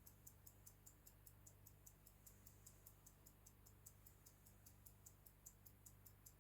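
Mechanical Swiss pocket watch ticking: faint, quick, even ticks at about five a second, over a low steady hum.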